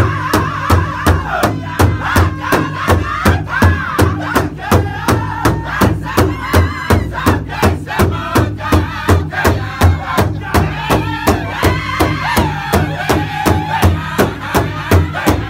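Northern-style powwow drum group singing in unison in high voices while all strike one large drum together in a steady beat of about three strokes a second.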